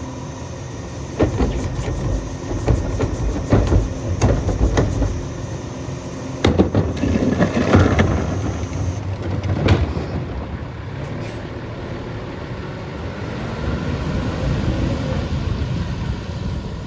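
Western Star Pak Mor rear-loader garbage truck's diesel engine running as a plastic trash cart is dumped by the cart tipper, with a string of bangs and clatter from the cart and falling trash over the first ten seconds. After that the engine runs steadily as the truck pulls away.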